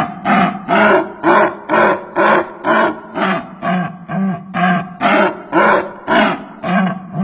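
A bird giving a harsh, strange call over and over in an even rhythm, about two calls a second.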